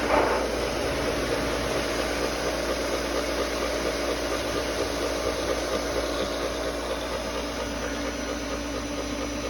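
Freshly primed pool pump switched on, its electric motor running with a steady hum over a broad hiss as it starts circulating water through the refitted filter.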